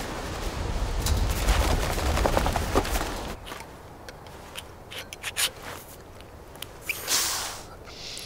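Rustling noise with a low rumble, then, after a drop, a handful of sharp clicks in quick succession and a short breathy hiss near the end.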